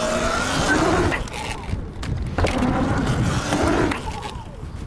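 Sur-Ron Light Bee electric dirt bike riding on skatepark ramps: a steady rumble of knobbly tyres rolling over the ramp surface, with a faint rising electric motor whine near the start.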